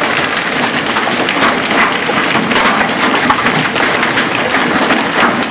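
Small hailstones mixed with rain pelting an asphalt driveway: a loud, dense hiss of rain with a steady scatter of sharp clicking impacts.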